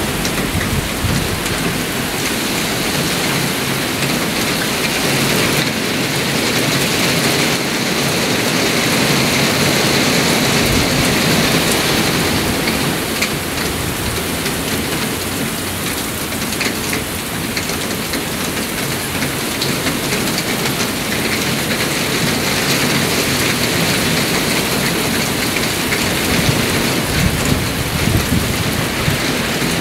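Heavy thunderstorm downpour: a loud, steady rush of rain, with low rumbling swells now and then.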